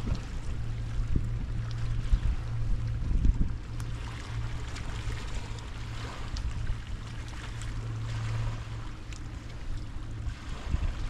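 Wind buffeting the microphone in gusts over the first few seconds, then easing, above a steady low hum and an even hiss.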